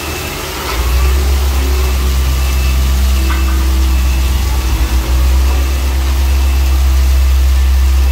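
Double-drum asphalt roller running close by, a loud steady low hum that sets in about a second in, over heavy rain falling steadily.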